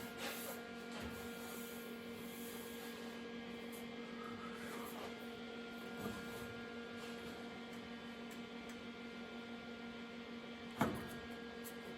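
Steady low electrical hum, with a single sharp click near the end.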